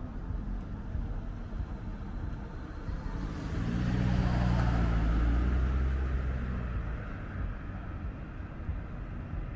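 A car passing by: engine and tyre noise swell about three seconds in, peak, and fade away over the next few seconds, over a steady low rumble of distant traffic.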